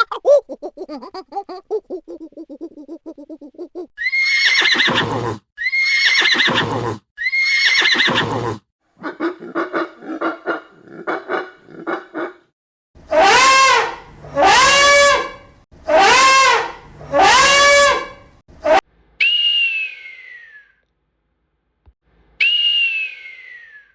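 A sequence of different animal calls. It opens with a low pulsing call, followed by three loud calls, a run of short stuttering calls, four arching calls that rise and fall in pitch, and two falling whistle-like calls near the end.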